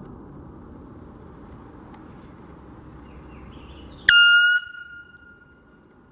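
Handheld air horn giving one short, loud, high blaring blast about four seconds in, dying away over the next second or so.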